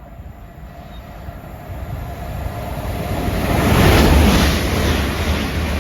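Two coupled Class 387 electric multiple units passing through the station at speed. The low rumble and rushing noise of the train build up steadily and are loudest about four seconds in.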